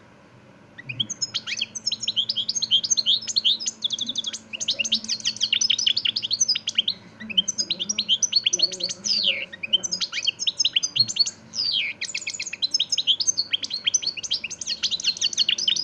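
European goldfinch singing: long phrases of rapid, high twittering chirps and trills, starting about a second in and broken only by brief pauses.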